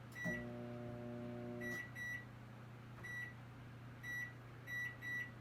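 Microwave oven keypad beeping as buttons are pressed to set the cooking time, about seven short beeps of one pitch at uneven intervals. A steady hum sounds for about the first second and a half.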